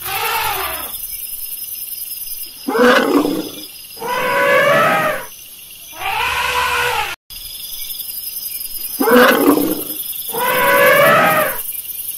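African elephants trumpeting: a run of loud, brassy calls, each about a second long, with short gaps between them. The same run of calls repeats about halfway through.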